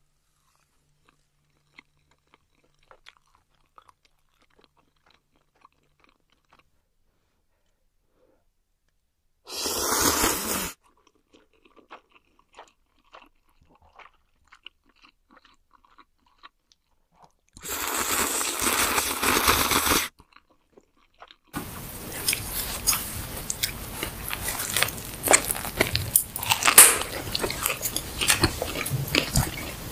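Close-miked eating sounds: faint wet mouth clicks of chewing at first, then two loud slurps of spicy noodles, each lasting a second or two. From about two-thirds of the way in comes steady crunchy chewing, thick with crisp crackles.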